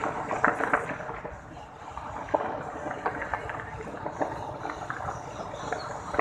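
Fireworks and firecrackers going off across the city: a rapid cluster of sharp cracks in the first second, then scattered single bangs every second or so over a steady rumble and hiss.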